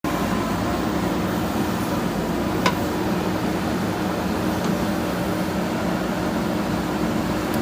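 JCB backhoe loader's diesel engine running steadily, with one sharp metallic knock about two and a half seconds in.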